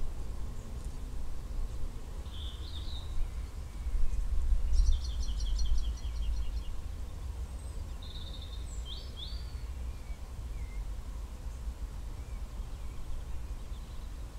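Outdoor wind rumbling low on the microphone, with songbirds calling in the background: a short call about two seconds in, a fast trill of notes around five seconds, and a few more calls around nine seconds.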